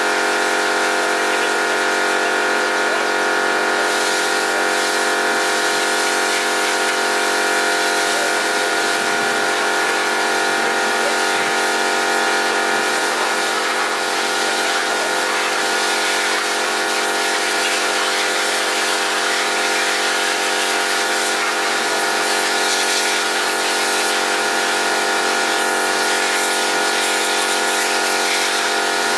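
Pressure washer running steadily, its pump motor giving a constant whine, with the water jet hissing as it blasts mud off an off-road vehicle's body, tyres and suspension.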